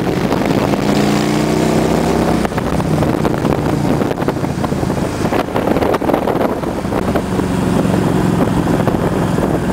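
Motorcycle engine running while being ridden, its pitch climbing for the first couple of seconds and then dropping suddenly, steadier towards the end, with wind on the microphone.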